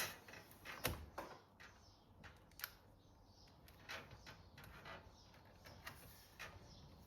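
Faint, scattered light clicks and taps of PC components being handled and fitted, the loudest about a second in.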